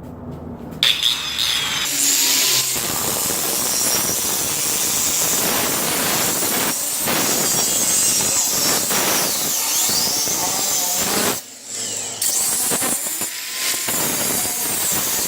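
A power tool grinding steel, a continuous high, hissing grind that stops briefly about eleven seconds in, then starts again.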